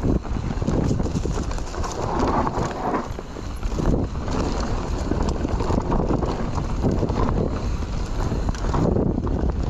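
Mountain bike descending a dry, dusty dirt trail: a continuous clatter and rattle of the bike and tyres over rough ground, with wind rushing on the microphone.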